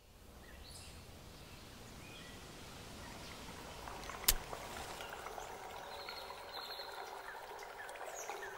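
Faint outdoor-style nature ambience with a few short bird chirps, fading in. About halfway through, a match is struck on its matchbox: one sharp scrape, the loudest sound.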